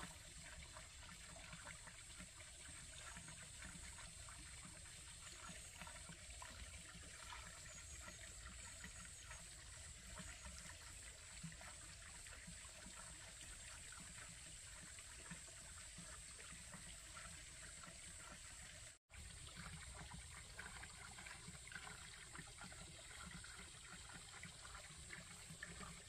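Faint, steady trickle of water at a garden pond, broken by a brief dropout about nineteen seconds in.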